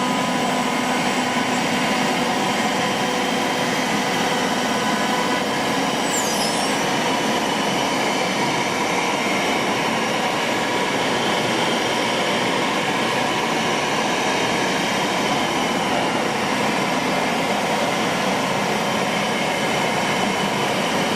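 ATC CNC router with a 9 kW air-cooled spindle running, giving a steady whirring machine noise with faint steady tones. A brief high falling squeal comes about six seconds in.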